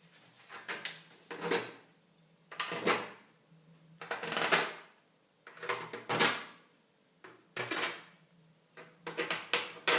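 Plastic cover of a PS3 Fat console being fitted back over the motherboard: about seven short scraping, sliding sounds, roughly one every second and a half, over a faint low steady hum.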